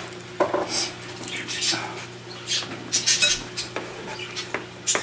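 Small metal parts and a cord being handled against a flat-panel TV's sheet-metal back chassis: scattered light clinks and clicks, with a brief scraping rustle about three seconds in.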